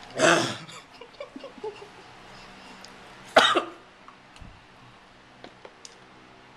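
A man coughs hard twice, about three seconds apart, with his mouth full of burger he has just wolfed down; faint clicks and mouth noises between and after.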